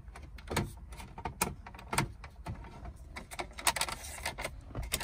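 Irregular plastic clicks and knocks from a Mk5 Golf's dashboard trim being worked loose with a plastic trim tool, its clips and panels tapping and rattling.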